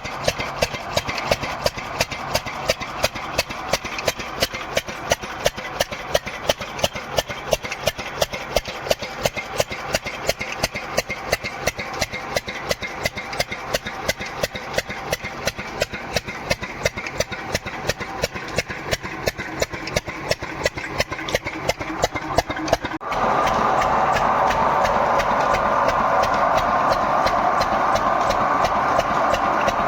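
An engine running with a regular sharp knock, about three beats a second. About three-quarters of the way through it switches abruptly to a louder, steadier running sound.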